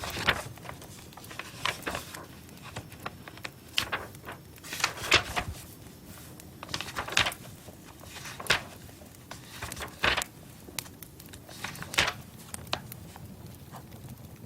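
Irregular sharp clicks, taps and crackles, some single and some in short clusters, with the strongest clusters about five, seven and ten seconds in.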